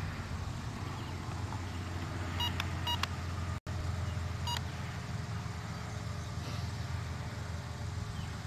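Quadcopter drone's motors and propellers humming steadily in flight. A few short electronic beeps come near the middle, and the sound cuts out for an instant between them.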